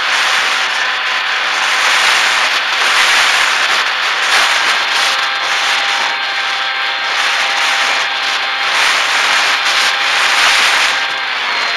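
Onboard recording of an FX-61 flying wing's electric motor and propeller in flight, mostly a loud rush of wind over the camera's microphone with a faint steady motor hum beneath. A high whine comes in near the end.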